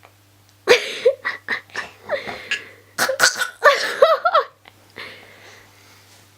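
A nine-month-old baby laughing and giggling in a string of short bursts, from about a second in until about four and a half seconds in.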